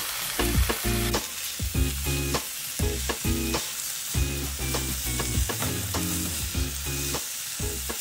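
Chicken, noodles and vegetables sizzling in a hot wok as they are tossed and stirred, a steady frying hiss with small clicks of the utensils against the pan.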